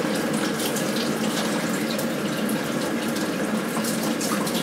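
Kitchen mixer tap running steadily into a sink, the water stream splashing over hands rinsing items under it.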